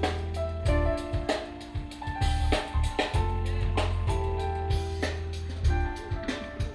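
Live band playing an instrumental passage: a drum kit keeping a steady beat over a heavy bass line and held chords.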